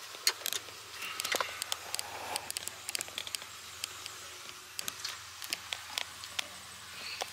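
Scattered light clicks, taps and rustles of an infant car seat, its handle and buckles being handled and fitted in a car's back seat. The clicks come at an uneven pace, several in quick succession around the first and third seconds.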